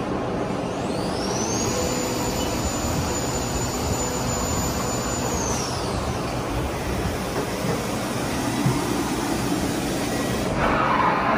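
Haas VF-2D machining centre's newly installed spindle spinning up with a high whine that rises in pitch over about a second, holds steady for a few seconds, then winds back down, over a steady machine and shop noise. A louder rush of noise comes in near the end.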